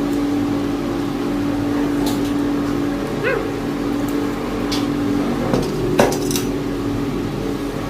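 Steady machine hum, with a few sharp clicks of tableware while eating and a brief rising squeak about three seconds in.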